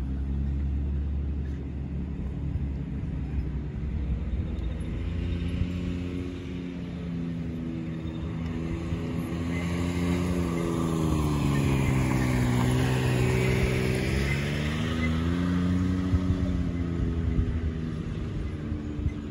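Off-road vehicle engines running close by, most likely the side-by-side UTV in the foreground, over a steady low rumble. The engine note drops in pitch and rises again around the middle, as the throttle changes.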